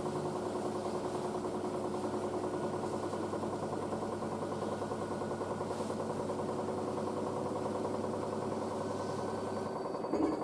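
Miele W562 washing machine spinning: a steady whine from its brush motor over the hum of the drum. Near the end a low hum cuts out, followed by a short knock.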